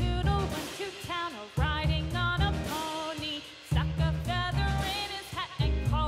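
Background music: a bouncy children's tune, its melody over a steady bass beat.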